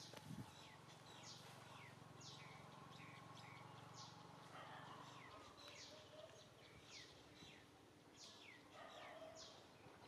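Faint bird calls: short chirps, each sliding down in pitch, repeated irregularly about once or twice a second. A low steady hum underneath stops about halfway through.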